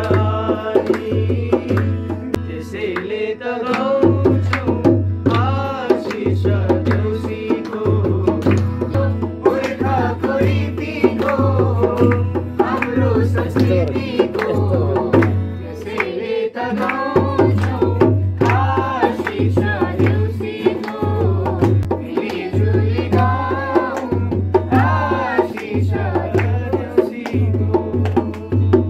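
Live Nepali folk song: voices singing over a strummed acoustic guitar, with a madal (Nepali two-headed barrel drum) beating a steady rhythm and hand claps keeping time.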